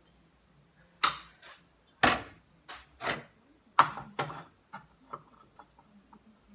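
Knocks and clatter of parts being worked on a stripped-down Briggs & Stratton engine: about six loud sharp strikes over the first four seconds, then a run of lighter clicks.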